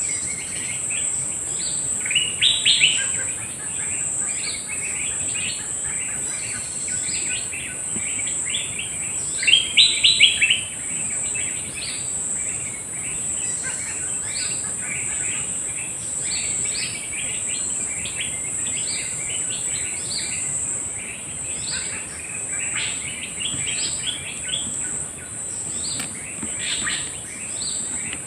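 Drongo calling: a long series of short chirps and whistles, with louder runs about two seconds in and around ten seconds in, over a steady high-pitched insect drone.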